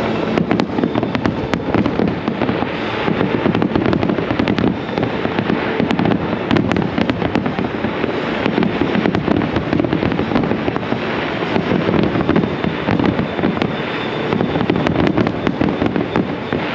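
Fireworks display going off continuously: a dense, rapid crackling and popping with many sharp bangs.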